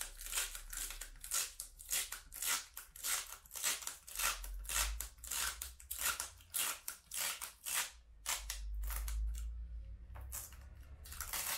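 Protective plastic film being peeled back from a PVC window sill: a rapid run of crackling, ripping strokes, several a second, thinning briefly about eight seconds in.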